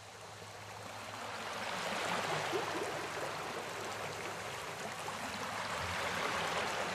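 Steady rushing water noise, like a flowing stream, growing gradually louder over the first two seconds and then holding steady.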